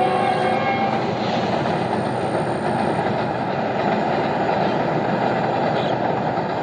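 Diesel locomotive hauling a passenger train across a steel truss railway bridge. Its multi-tone horn chord cuts off about half a second in, and then the train's steady rumble of wheels and carriages carries on.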